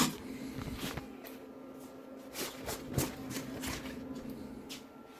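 A steady low hum with scattered light clicks and knocks, irregularly spaced, the loudest about three seconds in.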